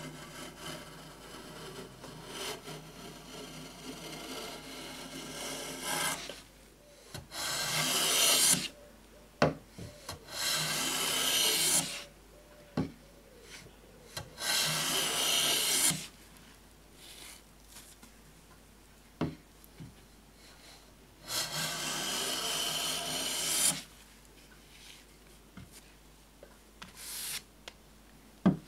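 Lie-Nielsen No. 4 bronze bench plane with a cambered blade, pushed along a hardwood board in four long strokes that each hiss for one to two and a half seconds as it takes full-width shavings. Short knocks from the plane being lifted and set back down fall between the strokes.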